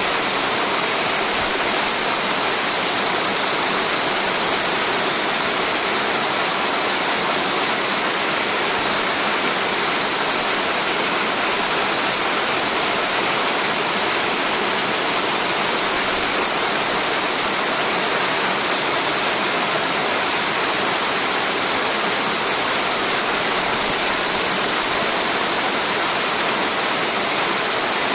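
A multi-tiered mountain waterfall pouring steadily: an even, unchanging rush of falling water.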